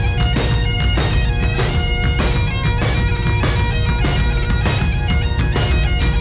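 Background music: bagpipes playing a tune over steady held drones, with a drum beat about twice a second.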